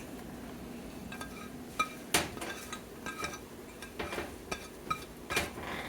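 A kitchen utensil clinking and tapping against cookware about half a dozen times, several strikes ringing briefly, while toppings are spread onto an omelette in the pan.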